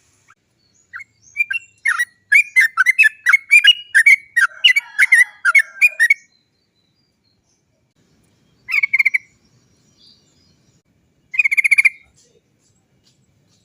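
Yellow-vented bulbul (trucukan) singing a fast, bubbly run of notes for about five seconds. Then come two short rattling "cok cok cok" bursts a few seconds apart.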